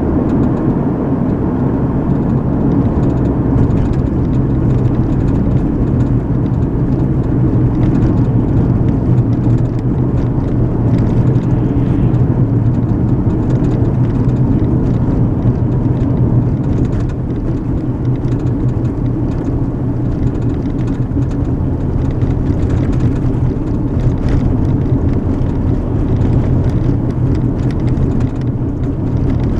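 Steady road noise of a moving car heard from inside the cabin: tyre rumble and engine drone, with faint light ticks and rattles.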